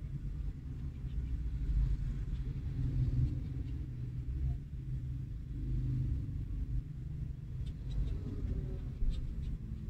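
Low, steady rumble of road traffic, with a few faint clicks near the end.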